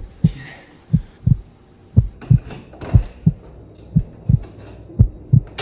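Heartbeat sound effect: slow, steady pairs of low thuds, a lub-dub about once a second.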